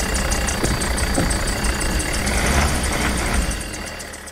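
Small van's engine running at low revs as it drives off, a steady low rumble that fades away over the last second.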